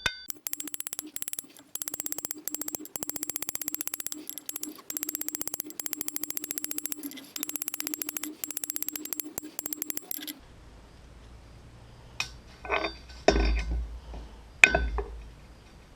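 Small ball-peen hammer rapidly tapping its peen on a steel rod at the anvil, many light strikes a second with a steady metallic ring, texturing and twisting the rod into a rose stem. The tapping stops about ten seconds in, followed by a few scattered clinks and knocks.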